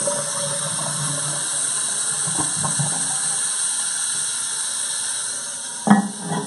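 Toilet tank refilling after a flush, its fill valve hissing steadily as water runs in. Near the end the porcelain tank lid clunks and rattles as it is set back on the tank.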